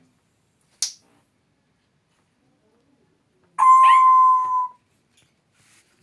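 African grey parrot calling: a brief sharp high squeak, then a few seconds later a loud whistled call held on one steady note for about a second, with short chirping slides over its start.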